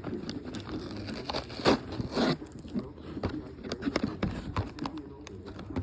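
Handling noises: scattered light clicks and taps, with two short rustling bursts about two seconds in.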